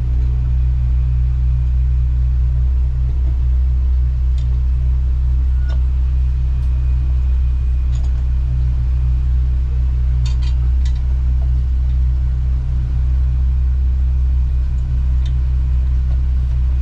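Boat motor running steadily under way, a low, even hum that holds constant.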